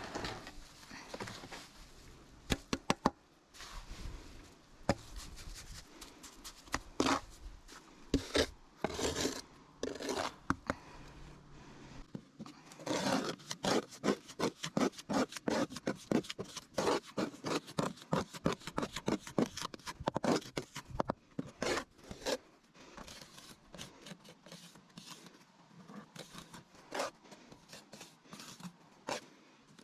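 Repeated scraping and rubbing strokes in uneven runs, at their loudest and quickest, about three a second, through the middle of the stretch.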